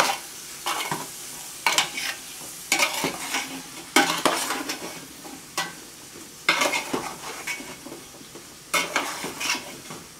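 Metal tongs stirring and tossing green beans in an aluminium stock pot, scraping and clattering against the pot in irregular bursts. Under it, a steady low sizzle of the beans sautéing in garlic bacon butter sauce.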